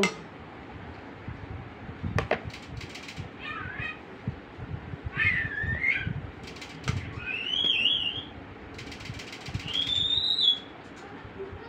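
Wet rice-flour paste being worked by hand over water lily flowers, with soft irregular squelching and knocking. Several high, wavering calls from an animal sound over it, each under a second and a half long.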